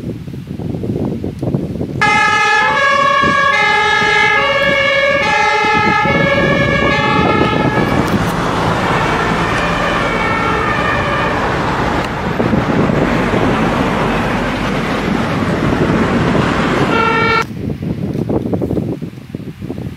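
Two-tone emergency-vehicle siren, alternating between a high and a low note, each held a little over half a second, for about six seconds. It gives way to a loud rushing noise that cuts off suddenly near the end.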